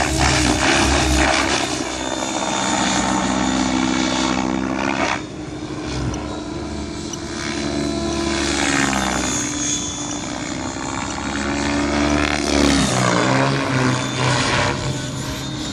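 Thunder Tiger Raptor G4 E720 electric model helicopter flying 3D aerobatics: its Spin 700 rotor blades beat and whoosh over the whine of the Scorpion electric motor and drive. The pitch keeps swinging up and down as the helicopter swoops past, climbs and changes load, with a short drop in level about five seconds in.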